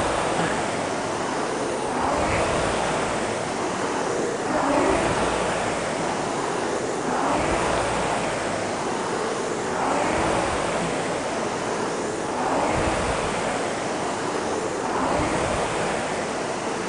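Two Concept2 air-resistance rowing ergometers being rowed, each stroke spinning up the fan flywheel into a swelling whoosh with a faint rising whir, about one stroke every two and a half seconds.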